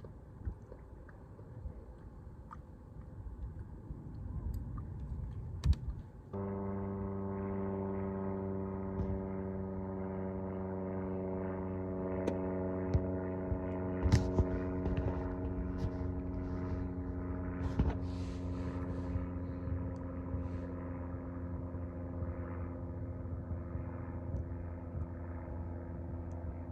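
Boat motor starting up about six seconds in and then running steadily at a constant pitch, after a low rumble with a few knocks.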